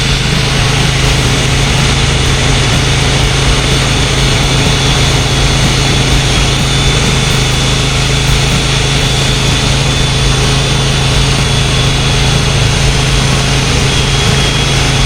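Electric sander running steadily against cured epoxy on oak rails, a continuous motor hum and sanding hiss with a thin high whine over it.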